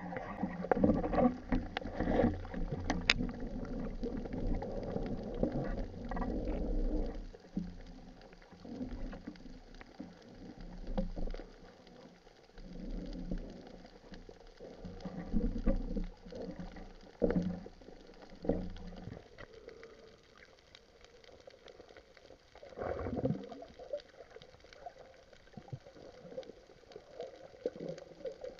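Muffled underwater noise heard through a waterproof camera housing: water rushing and sloshing in irregular surges as the diver swims, with a few faint ticks. It is busiest in the first few seconds and calmer in the second half.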